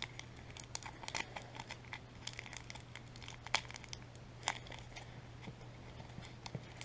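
Toilet paper being unwrapped and torn off a small wrapped item: soft crinkling and tearing rustles with scattered small clicks, over a steady low hum.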